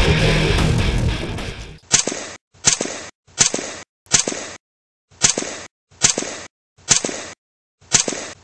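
Distorted rock music fading out, then eight sharp crack-like hits about a second apart, each with a short tail, a title sound effect that lands as each competition name appears.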